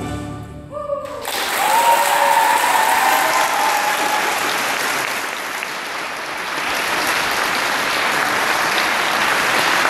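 The last notes of a piece with mallet percussion, then an audience bursts into applause about a second in and keeps clapping. Over the first few seconds of the clapping, a few long cheering calls can be heard.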